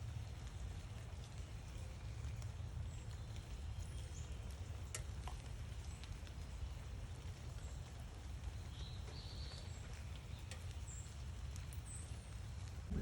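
A few faint, short bird chirps scattered over a steady low background rumble, with one brief click midway.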